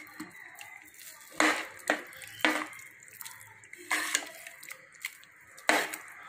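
Steel ladle mixing cooked rice and dal into simmering sambar in a pressure cooker: wet sloshing and squelching, with about five clanks of the ladle against the pot.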